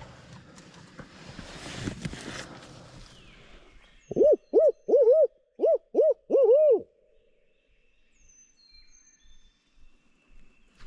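Barred owl hoot in the 'who cooks for you' rhythm: about eight loud rising-and-falling hoots in two and a half seconds, starting about four seconds in.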